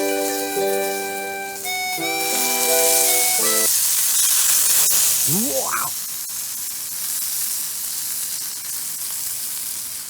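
Light background music that stops after about three and a half seconds, then food sizzling steadily in a hot pan, with one short rising squeak about halfway through.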